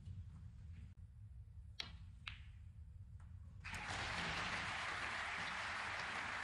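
Two sharp clicks of snooker balls about half a second apart, each with a brief ring. Just before the end a louder, steady rushing noise sets in and holds.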